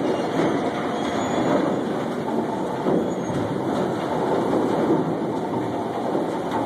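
Steady mechanical noise from a log-unloading crane and its machinery as the crane lowers its grapple toward a loaded log truck.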